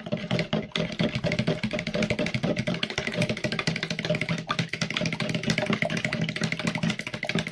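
A liquid mixture of egg, iced water and vinegar being beaten by hand in a bowl: a rapid, even clatter of the utensil against the bowl.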